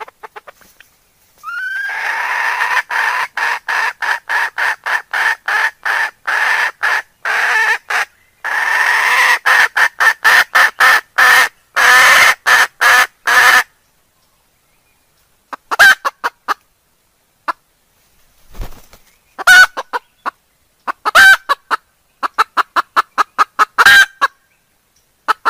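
Domestic hens clucking: a long run of quick, loud clucks, about three a second, for some twelve seconds, then after a short pause several shorter runs of clucks.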